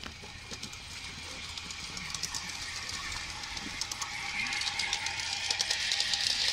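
Gauge 1 model train running past, its wheels clicking rapidly over the rail joints with a steady hiss, growing louder as it nears and passes.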